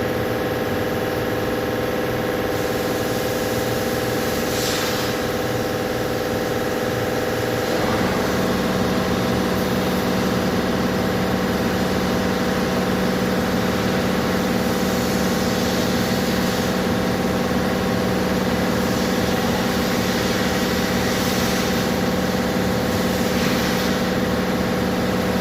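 Car engine idling steadily; about eight seconds in its note changes and it runs slightly louder.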